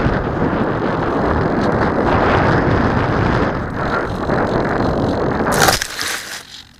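Onboard sound of a small foam RC airplane in low flight: a steady rush of air and motor noise. About five and a half seconds in, a short crunching crackle as the plane comes down into tall grass, and then the sound drops away.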